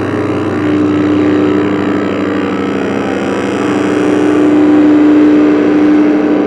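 Drone synthesizer music: one steady low note held throughout under a dense hum, with a slowly sweeping, phasing texture over it.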